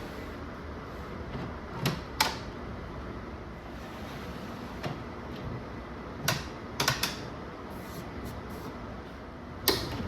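A handful of sharp wooden knocks and clacks, in twos and threes, over a steady background hiss: parts and tools being set down and handled during woodworking.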